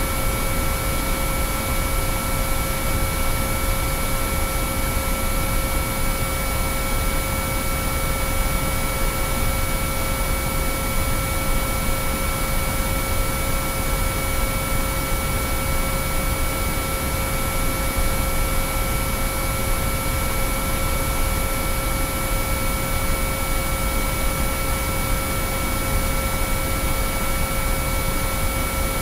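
Binaural-beat track of pure sine-wave tones: several steady tones at different pitches, from mid to very high, held without change over an even bed of hiss with a low rumble underneath.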